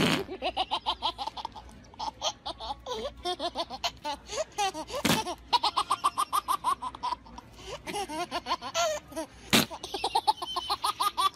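Baby laughing in several bouts of quick, repeated giggles. Three short, sharp noises, one right at the start, one about five seconds in and one near the end, are the loudest sounds.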